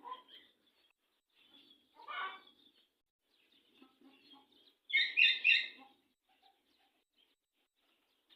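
Birds chirping in short scattered calls, the loudest a run of three quick high notes about five seconds in.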